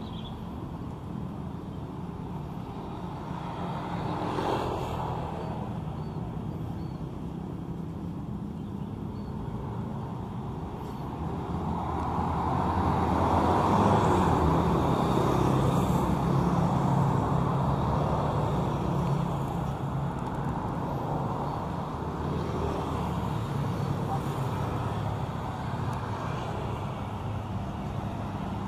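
Road traffic going by on a city street: a steady rumble that swells as a vehicle passes close, about halfway through.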